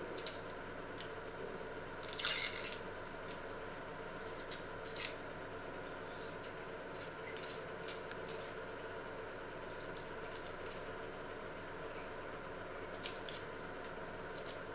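An onion being peeled by hand with a small paring knife: the dry, papery skin tearing and crackling in scattered short clicks and scratches. The loudest is a half-second rustle about two seconds in. A steady faint hum lies underneath.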